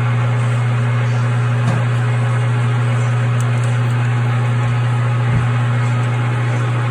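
A machine tool's electric motor running steadily during metal machining, with a constant low hum over a steady whirring noise.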